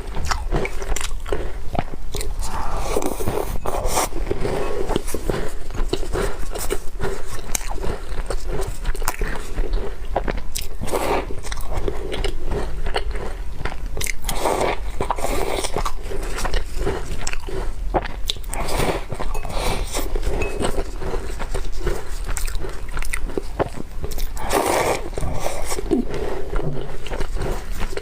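Close-miked chewing and biting of crumbly walnut cookies: repeated crunches and crackles, over a steady low hum.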